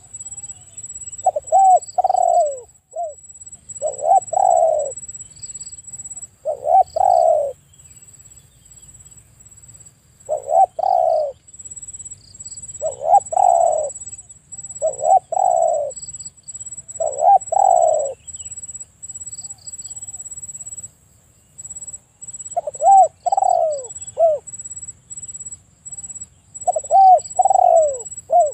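Spotted dove cooing: short phrases of two or three soft coos, repeated about every two seconds, with a longer pause about two-thirds of the way through.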